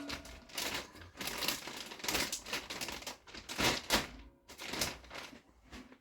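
Plastic mushroom grow bag crinkling and rustling in a run of irregular scrunches as the hardwood sawdust inside is packed down by hand.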